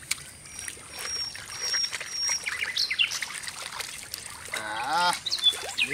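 Water splashing and trickling as goat intestines are washed by hand, with small irregular splashes and clicks. Birds chirp a few times in the background.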